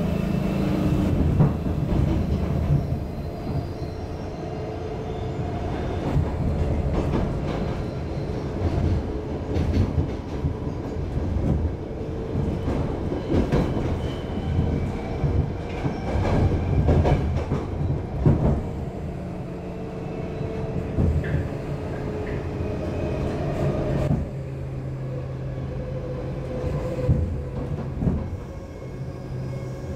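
Stockholm Metro C6 car running along the track, heard from inside the car: a steady motor hum under the rumble of the wheels, with repeated clacks over rail joints. The sound eases a little about three quarters of the way through.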